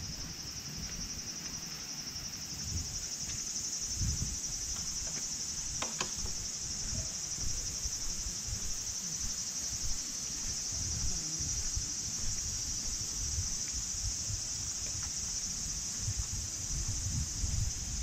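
A steady, high-pitched insect drone, over low, irregular thuds from walking.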